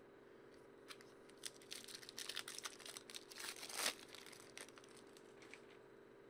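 Plastic wrapper of a hockey trading-card pack crinkled and torn open by hand: a run of crinkles and small rips over about three seconds, the loudest a longer tear near the middle, followed by fainter handling of the cards.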